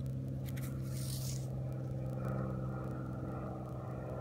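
A steady low hum with several overtones throughout, with a brief scraping rub about a second in as dirt is rubbed off a small dug-up metal find.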